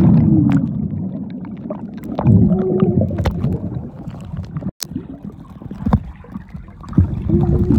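Muffled gurgling and sloshing of pool water heard through a phone sealed in a waterproof case, most likely held under the water, with low wobbling tones and little high sound getting through.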